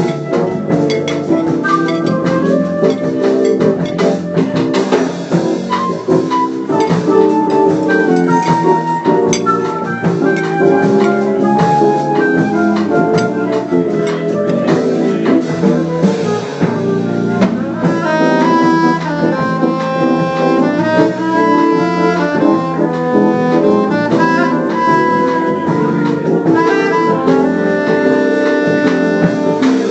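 Jazz instrumental: a saxophone plays a melody of held notes over drum kit and band accompaniment, at an even level throughout.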